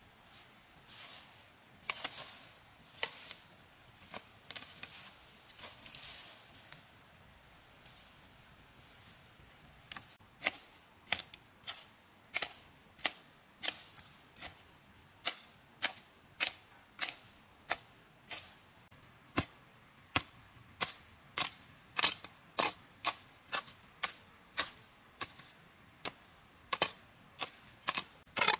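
Repeated sharp strikes of a hand tool on wood: scattered for the first ten seconds or so, then steady at about one and a half strikes a second. A steady high-pitched insect drone runs underneath.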